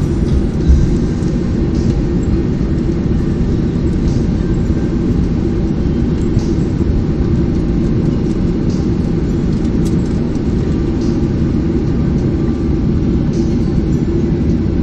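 Cabin noise of a Boeing 737-800 taxiing after landing: a steady low rumble from the engines and the rolling aircraft, with one louder bump about a second in.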